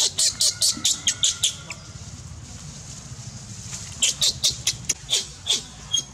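Infant macaque squeaking in rapid runs of short, sharp high-pitched calls, about five a second, with a quieter pause in the middle.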